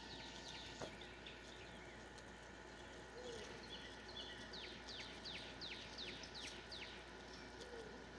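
Faint outdoor quiet with a songbird singing a quick run of about seven whistled notes, each sliding downward, a little past the middle.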